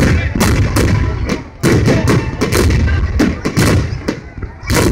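Fireworks display: rapid, overlapping bangs of aerial shells bursting, about three or four a second, over a continuous low rumble, with a brief lull about a second and a half in.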